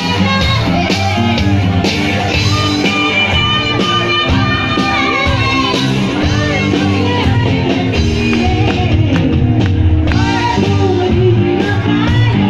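A live rock band playing loud: a singer over electric guitars, bass and drums.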